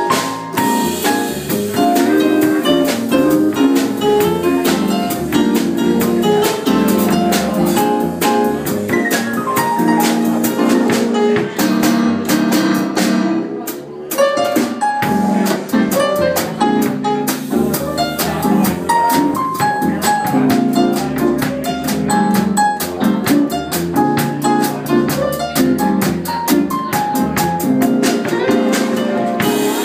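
A small jazz combo playing live: a Roland XP-80 keyboard, an upright double bass and an electric guitar, with drums keeping a steady beat.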